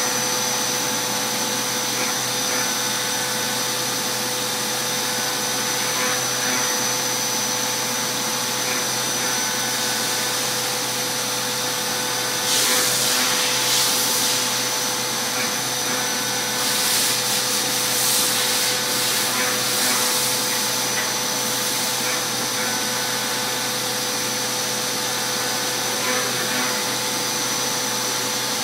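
CNC milling machine's spindle and end mill cutting an aluminium rifle lower receiver under flood coolant: a steady whine with coolant spray hissing. The hiss gets louder for a couple of stretches about halfway through.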